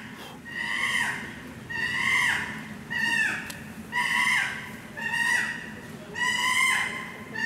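Chimpanzee calling: a high cry repeated about once a second, about seven times, each call sliding down in pitch.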